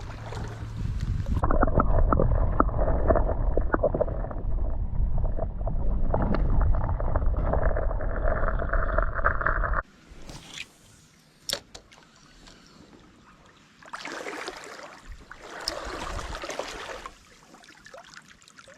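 Muffled creek water gurgling and sloshing, loud and heavy in the low end, as a bass is let go back into the water. About ten seconds in it drops abruptly to a quieter stretch of faint stream noise with a few sharp clicks and two short rushes of sound.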